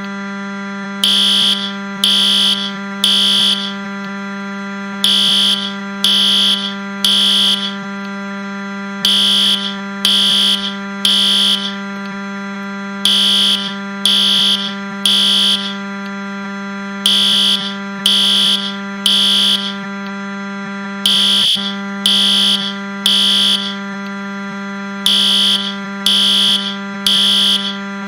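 Fire alarm sounding in the temporal-three evacuation pattern: three high beeps about a second apart, then a pause, repeating about every four seconds. Under it runs a steady low electronic buzz, the Wii crash sound pitched down.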